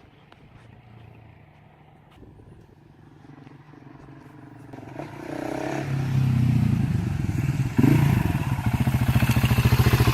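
Husqvarna 701's single-cylinder engine running through an Arrow slip-on exhaust with the baffle fitted. It grows louder from about halfway through, gives a short rev near the end, then settles into a steady, evenly pulsing idle.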